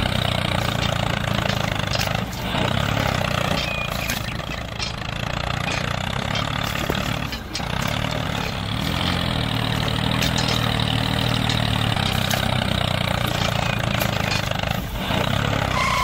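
Tractor engine running steadily, with brief dips in level about two and a half and seven and a half seconds in.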